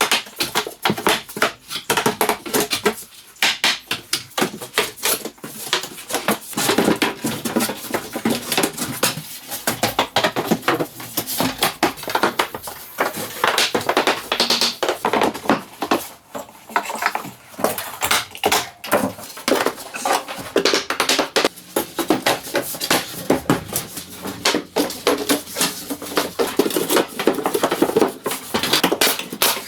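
Carpentry clatter from wooden boards being fitted and fastened: a dense run of quick knocks, taps and clacks, several a second, in a small room.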